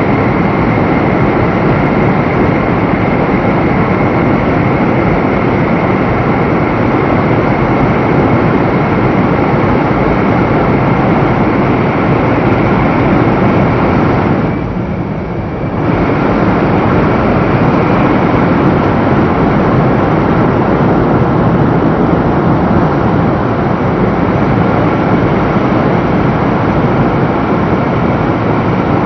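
Loud, steady running noise of a 500 series Shinkansen at speed, heard from inside the car, with a steady high whine on top. The noise dips briefly about halfway through, then comes back.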